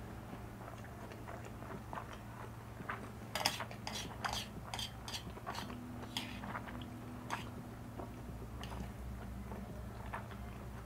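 Chopsticks clicking and scraping against a metal pan while stirring and lifting saucy instant noodles, with a run of sharp clicks in the middle. A steady low hum sits underneath.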